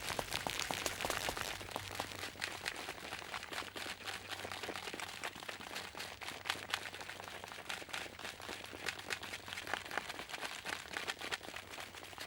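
Footsteps: a quick, irregular run of crisp steps, somewhat louder in the first second or so.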